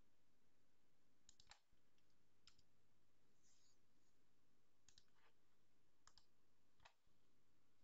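Near silence broken by a few faint computer clicks, from keyboard keys and mouse buttons: a short run of clicks about a second and a half in, then single clicks spaced out over the rest.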